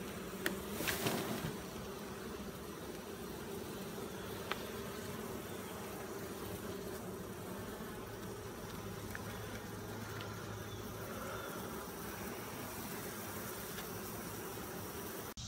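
Italian honey bees buzzing steadily around their hive, the colony riled up after being opened. A few sharp knocks about a second in, as the wooden hive boxes are handled, and a lone click a few seconds later.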